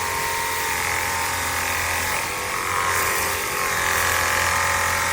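Ontel Turbo Jet HydroX5 Pro 21-volt cordless pressure washer running: its battery-powered motor and pump hum steadily under a hiss of water spray.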